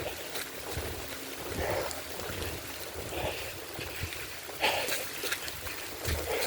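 A runner's footfalls on a wet, muddy woodland trail, landing about twice a second, over a steady hiss of rain.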